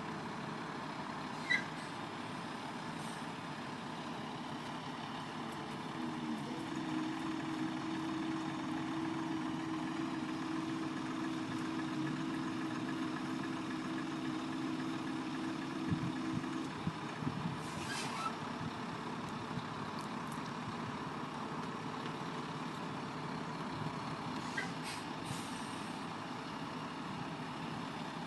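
Heavy diesel truck engine running while a flatbed semi-trailer moves slowly. Its note rises about six seconds in and holds steady for about ten seconds before dropping back. A few short squeaks and clicks are scattered through.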